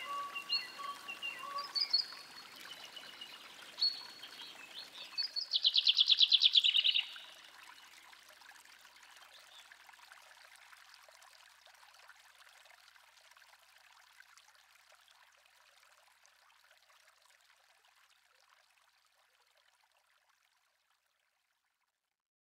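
Birds calling over a faint trickle of running water, with a loud, rapid trill about five seconds in. After the birds stop, the water sound fades slowly away.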